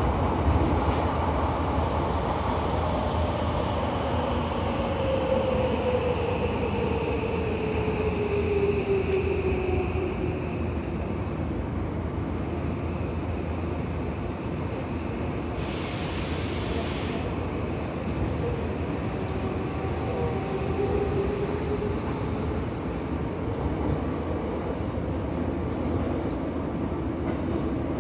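Subway train running, heard from inside the car: a steady rumble of wheels and running gear, with a motor whine that glides downward in pitch in the first third. A brief hiss comes about halfway through.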